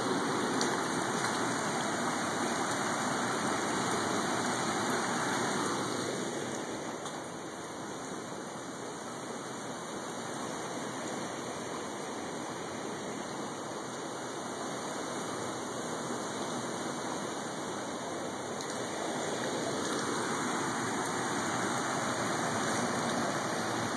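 Steady rush of heavy storm rain and running water, louder at the start, easing in the middle and swelling again near the end.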